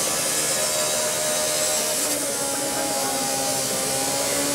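Angle grinder cutting into the metal of a wrecked train cab, a steady buzzing whine whose pitch shifts partway through.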